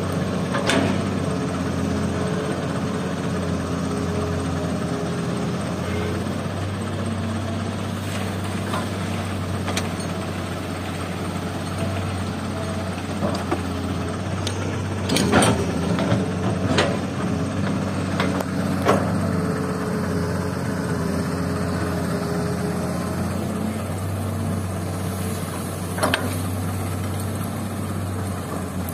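A tracked excavator's diesel engine running steadily under hydraulic load while it loads sand into a dump truck, its pitch shifting a little. Several sharp metal knocks from the bucket are heard, the loudest cluster about halfway through.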